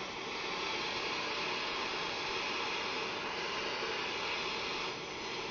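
Propane torch burning with a steady hiss as its flame heats a copper pipe joint for soldering.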